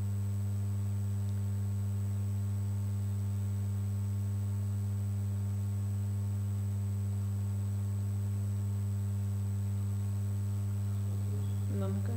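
Steady low electrical hum on the recording with a faint high whine above it, unchanging throughout. A faint voice murmurs briefly near the end.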